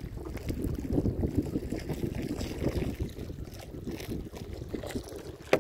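Wind buffeting the microphone over water washing along the hull of a small sailboat under sail, with one sharp knock near the end.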